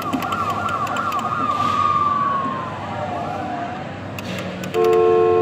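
Fire engine kiddie ride's speaker playing an electronic siren: a quick warbling wail that slows into one long tone sliding down in pitch. Near the end a loud, steady horn blast begins.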